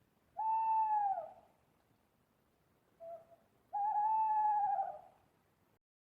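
Owl hooting: two long hoots of about a second each, each dropping in pitch at the end, with a short lower note between them.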